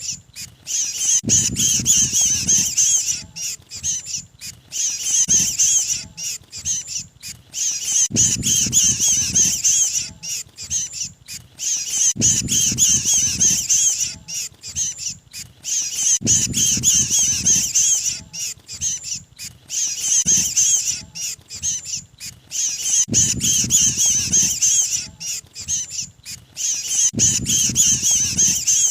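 Lure recording of mantenan birds giving a rapid, harsh, high-pitched chattering distress call (the 'kejepit' or trapped-bird call), in bouts of two or three seconds that repeat about every four seconds, with a low rumbling noise under each bout.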